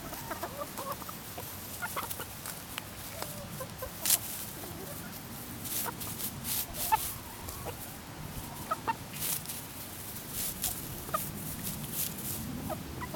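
Hens clucking softly with short scattered calls while they forage. Sharp clicks and rustles come through at intervals as they peck in the dry grass.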